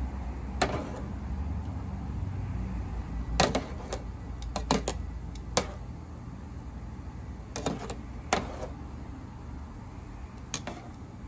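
Kitchen tongs clicking and tapping against the pot and plate about ten times as asparagus is lifted out of boiling water, over a low steady rumble.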